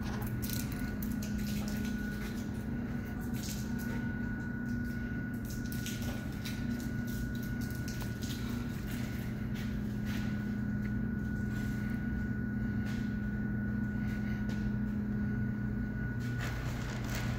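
Steady low machine hum with a thin, steady high tone over it, and scattered clicks and knocks throughout, as of construction work going on inside the building.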